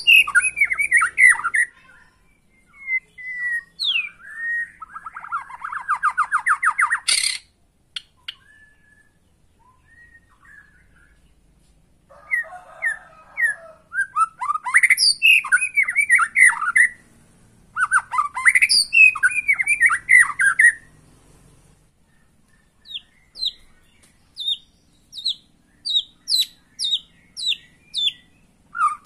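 White-rumped shama singing in varied phrases with pauses between: quick runs of sweeping whistled notes, a rapid buzzy trill and a harsh chatter, then a string of short, evenly spaced notes near the end. A single sharp click comes about seven seconds in.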